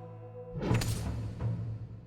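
Dramatic background music with a low drum-like hit and a sudden sharp rushing crash less than a second in, then a second deep swell.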